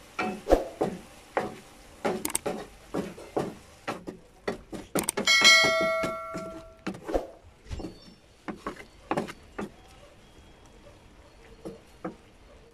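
Wooden spatula knocking and scraping against a wok while squid is stirred in its sauce, two or three knocks a second, thinning out after about eight seconds. About five seconds in, a bell-like ding rings out for about a second and a half over the stirring.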